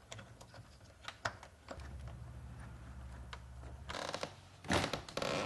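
Faint small clicks and taps of hands turning a metal turnbuckle on a wooden door frame to square a sticking door, then near the end two short scraping, rustling sounds as the wooden door is pushed and swung.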